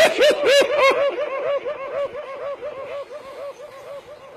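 One voice in a long run of quick, even pulses, about six or seven a second, growing gradually fainter: a drawn-out laugh or sob.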